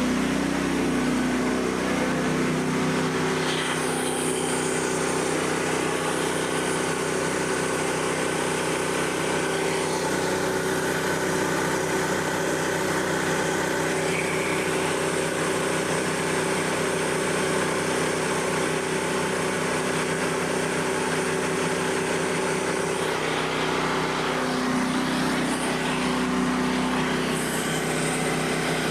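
Portable band sawmill's 13.5 hp gasoline engine running steadily at full throttle, driving the band blade through a white oak log. The engine's pitch wavers briefly near the start and again about 23 seconds in.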